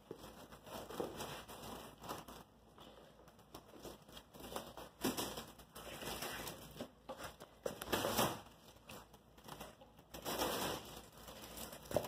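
Clear plastic stretch wrap crinkling in irregular bursts as it is pulled off the roll and handled, the loudest burst about two-thirds of the way through.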